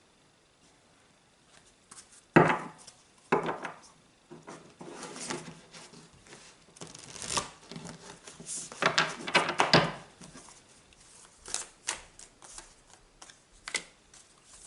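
Tarot cards being shuffled and handled: after a quiet start, a sharp tap or knock, then irregular rustling and riffling with scattered light ticks.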